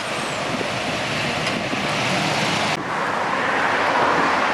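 Steady road and engine noise of a moving vehicle, the sound shifting abruptly about three seconds in.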